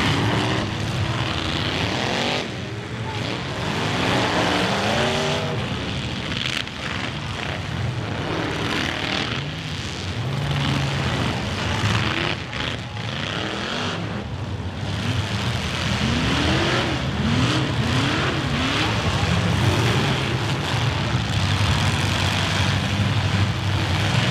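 Several demolition derby cars' engines running and revving at once, their pitch rising and falling as they accelerate and back up, with occasional crunches of cars hitting each other.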